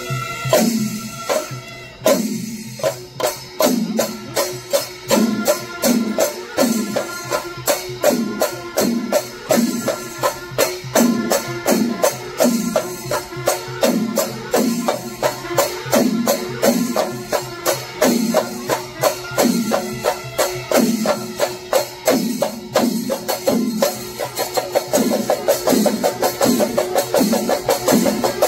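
Chenda melam: an ensemble of Kerala chenda drums beaten with curved sticks in a fast, steady rhythm, with ilathalam cymbals clashing through it. The strokes come closer together near the end as the rhythm quickens.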